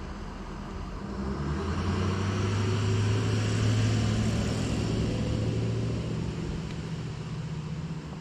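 A passing vehicle or aircraft engine: a low, steady hum that grows louder over the first few seconds, peaks midway, then fades away.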